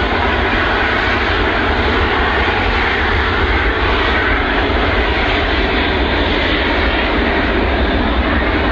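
Antonov An-124's four Progress D-18T turbofans at takeoff power during the takeoff roll: loud, steady jet engine noise with a deep rumble.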